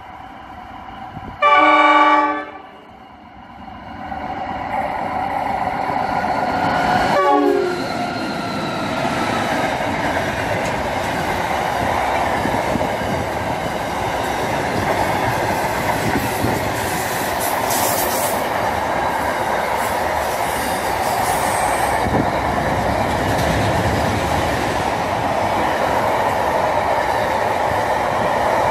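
Container freight train passing through a station: one short, loud horn blast about two seconds in, a pitched sound sliding down in pitch about seven seconds in as the locomotive goes by, then the steady rumble and clatter of the wagons rolling past.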